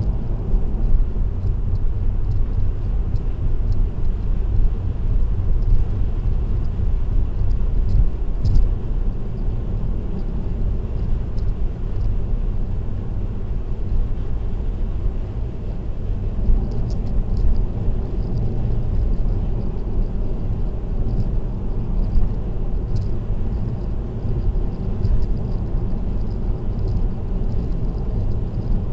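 Steady low rumble of a car cruising on an expressway: tyre and road noise with engine drone, picked up by a dashcam inside the car. Faint light ticks and rattles come through now and then, a few around eight seconds in, again from about seventeen seconds, and once more near twenty-three seconds.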